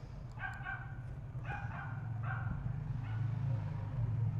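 A dog barking three short times, with a fainter fourth bark just after, over a steady low hum.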